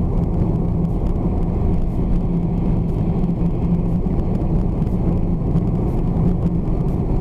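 Steady low rumble of a car driving in traffic: engine and road noise heard inside the cabin through a dashcam microphone.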